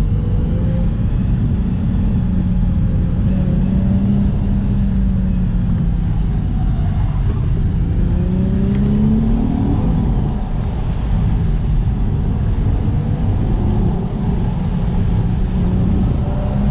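Infiniti G35's 3.5-litre V6 engine running while driving, its pitch drifting up and down with the revs and climbing steeply about nine seconds in, over a dense road rumble.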